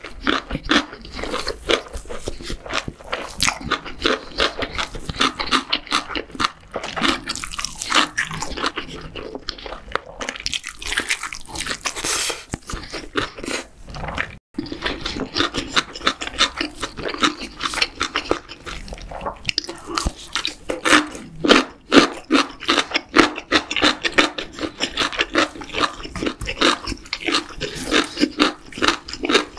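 Close-miked ASMR chewing of a large mouthful of gimbap: dense, rapid crunching and chewing, with a sudden break about halfway through where the recording cuts, then more chewing.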